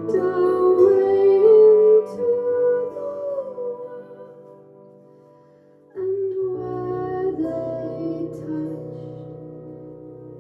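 Live music at a song's close: a voice holds a wordless, gliding melody over ringing chords from a plucked string instrument, fading away over the first six seconds. About six seconds in a new chord is struck with a short melody on top and left to ring out.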